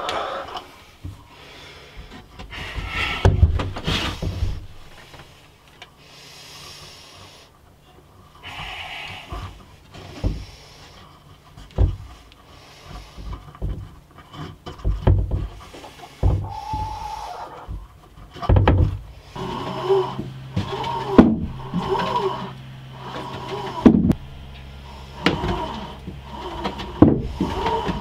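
Irregular wooden knocks and scraping as a wooden sliding pop door on a pull cord is fitted and worked. Sharp knocks recur every second or two in the second half.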